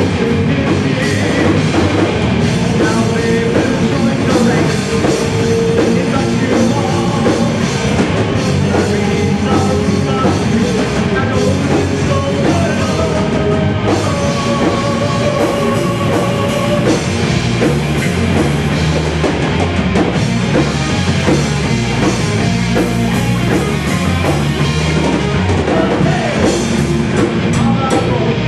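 Celtic metal band playing live: electric guitars and a drum kit in a dense, steady rock/metal passage with held melodic lines.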